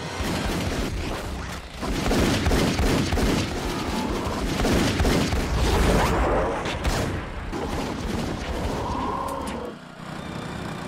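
Rapid, sustained gunfire: many overlapping shots in quick succession that cut off suddenly near the end.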